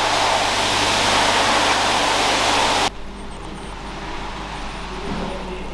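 Loud, steady machine noise with a low hum, cutting off suddenly about three seconds in and leaving a quieter steady hum.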